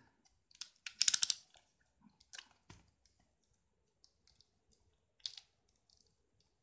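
Plastic shrink-wrap on a hardcover book crinkling and crackling as fingers pick at it to open it, in short irregular bursts, the loudest a quick run of crackles about a second in.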